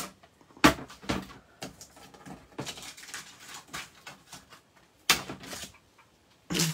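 Rummaging among craft supplies on a table while searching for a ruler: irregular short rustles and light knocks of paper and tools being shifted about, with quiet gaps in between.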